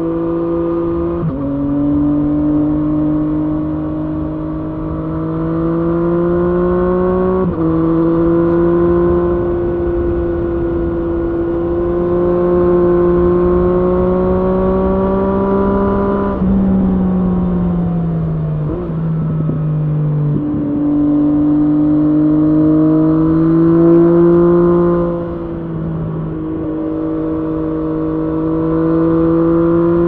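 Triumph Street Triple S three-cylinder engine through an SC-Project SC1-R slip-on exhaust with its dB-killer fitted, under way and pulling through the gears. The engine note rises steadily and drops at upshifts about a second in and about seven seconds in. It falls away as the bike slows around the middle, with a couple of steps, then climbs again with another shift near the end.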